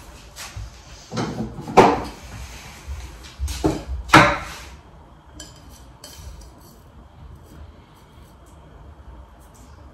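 Kitchen utensils and a glass beaker being handled on a countertop: a few clinks and knocks, two sharper ones about two and four seconds in, then it goes quieter.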